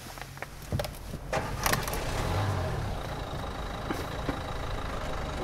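A car engine starting, with a few clicks before it catches about a second and a half in, then running steadily.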